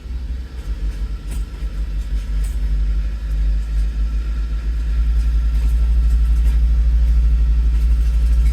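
1989 Nissan Sentra's four-cylinder engine idling: a low, steady rumble that grows louder over the first few seconds, then holds even.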